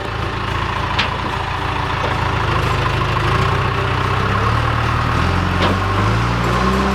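Backhoe loader engine running under work, its pitch stepping up about four and a half seconds in, with two sharp knocks, the first about a second in.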